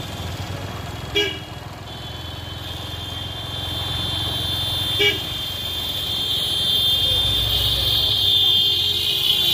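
Traffic in a jam: vehicle engines running, with two short horn toots, one about a second in and one about five seconds in. A steady high-pitched whine grows louder over the second half and cuts off suddenly at the end.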